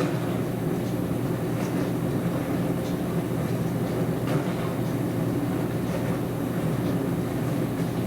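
Dishwasher running: a steady low hum with a few faint clicks over it.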